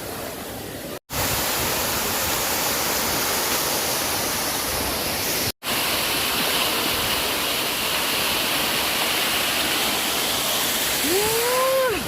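Steady rush of a waterfall, broken by two brief drops to silence, about a second in and again just past the middle. A short rising call sounds near the end.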